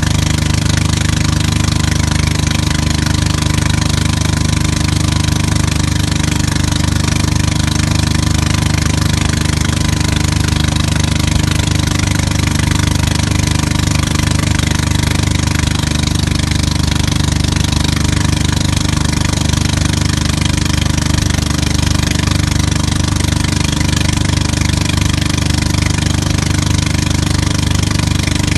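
Motorboat engine running steadily at speed under the load of a tow, heard close from on board, with a steady rushing hiss over it.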